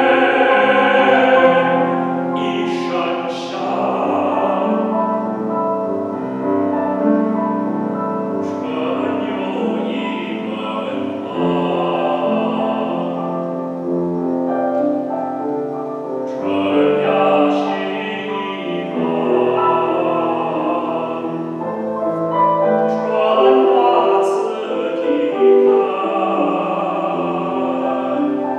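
A male classical singer sings an art song in operatic style over grand piano accompaniment. The long sung phrases break off for a breath three or four times.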